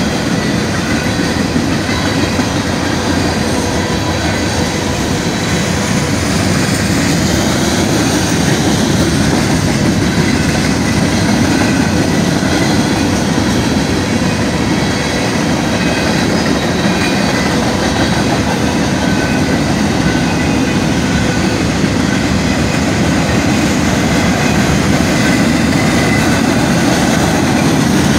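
Norfolk Southern freight train's cars rolling steadily past at the grade crossing: a loud, continuous rumble of steel wheels on the rails with clickety-clack over the rail joints.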